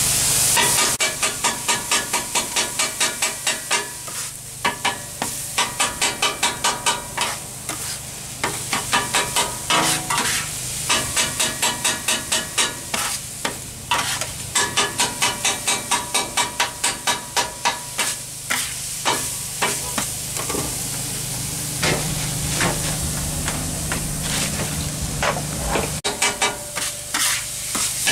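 Chopped chicken sizzling on a steel flat-top griddle while a metal spatula chops and scrapes it. The spatula makes rapid ringing clacks against the steel, about five a second, in runs with short pauses, over a steady sizzle.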